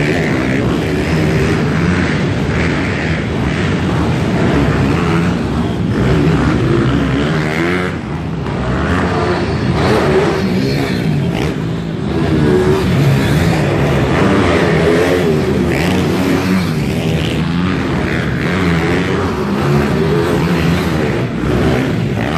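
Several pit bike engines revving up and down together as the bikes race round a dirt supercross track, their pitch rising and falling constantly through jumps and corners.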